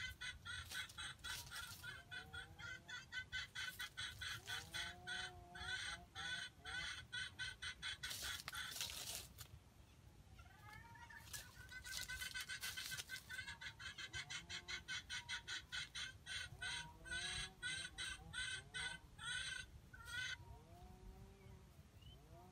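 Chicken clucking softly and repeatedly while foraging, under a fast, even, high-pitched pulsing chirp. Two brief bursts of rustling come near the middle.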